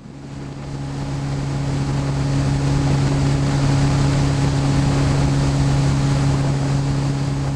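Outboard motor running at a steady speed, pushing a small boat along the river, with water rush and wind noise. It fades up from silence over the first couple of seconds.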